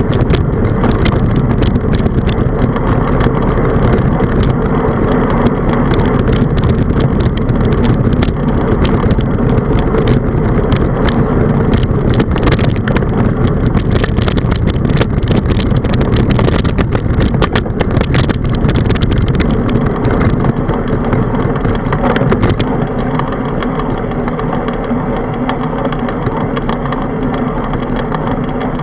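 Wind buffeting and road rumble on a handlebar-mounted camera's microphone during a bicycle ride, with frequent clicks and rattles from the bike and mount. The noise eases a little and the clicks thin out about twenty-two seconds in.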